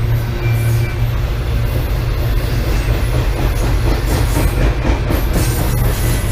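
BNSF intermodal freight train rolling past on the main line: a steady, loud low rumble of railcars on the track with the clatter of wheels over the rails.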